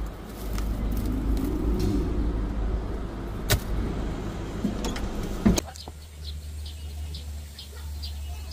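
Low vehicle rumble with a few sharp knocks. About two-thirds of the way through it cuts abruptly to a steady low hum, with a small bird chirping in short, high, repeated notes.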